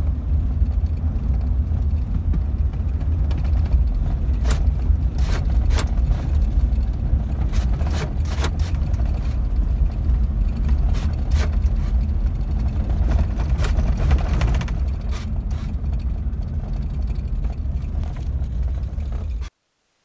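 Chevrolet Silverado pickup driving at about 30 mph in reduced engine power mode, heard from inside the cab: a steady low rumble of engine and road noise with scattered knocks and rattles. The sound cuts off near the end.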